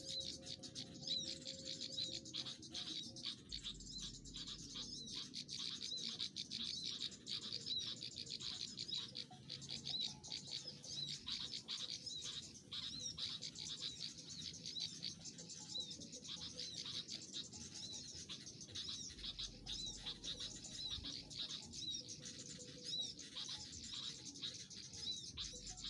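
Small birds chirping rapidly and continuously, many high, quick calls overlapping.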